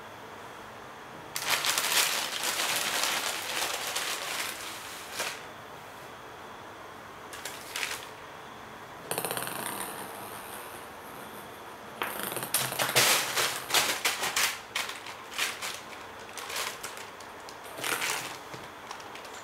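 Thin plastic bag crinkling and rustling in several spells as a cat pounces into it and paws at it, with a ping-pong ball clicking and rolling across a wooden floor.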